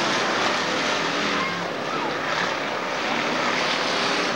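A pack of dirt-track stock cars racing, several engines running at once in a steady, loud drone with overlapping engine notes.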